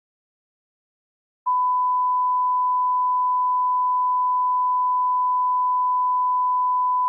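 Silence, then about a second and a half in a steady test tone starts abruptly and holds at one unchanging pitch: the broadcast reference tone that runs with colour bars on a TV feed once the station has signed off.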